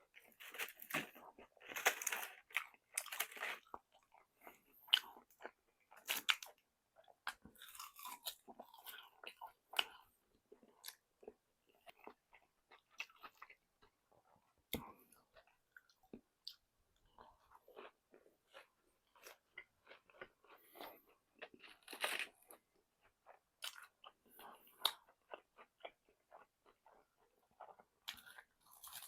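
Close-up chewing and crunching of crispy fried chicken, with irregular crackly bites and clicks.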